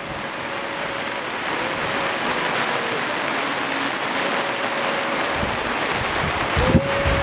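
Steady hiss of heavy rain, growing louder. A faint held tone comes and goes, and near the end background music with a low, even drum beat comes in.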